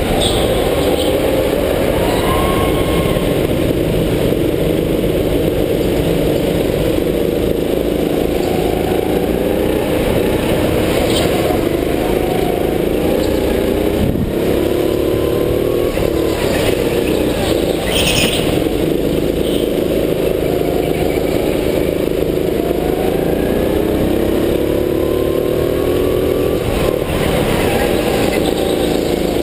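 Onboard sound of a go-kart's engine, its pitch rising as it accelerates and dropping as it lifts for the corners, over and over. A few brief knocks sound in the middle.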